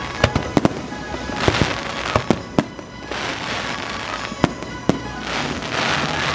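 A fireworks show: many sharp bangs, and crackling sprays of sparkle that come in waves about every one and a half to two seconds, over the show's soundtrack music.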